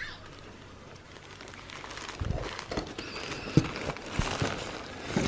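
Plastic bags of polystyrene foam beads being handled and shifted in a cardboard box: crinkling and irregular soft knocks starting about two seconds in, with one sharper knock midway.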